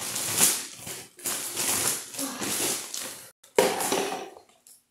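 Cardboard and plastic toy packaging rustling and rattling as it is handled, in four short bursts with brief gaps between them, one cut off abruptly.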